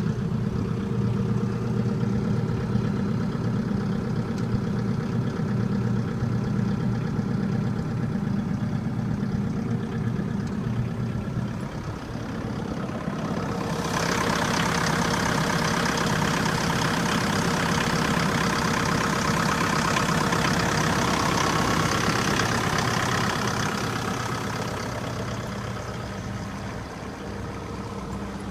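Multiquip DCA45 diesel portable generator set running steadily with an even engine hum. About halfway through, a louder, hissier high-pitched layer joins the engine sound for about ten seconds, then fades.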